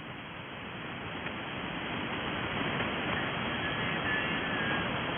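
Shortwave receiver hiss from an Icom IC-7300 tuned to an HF amateur band between transmissions: steady band noise slowly growing louder, with faint whistling tones about halfway through.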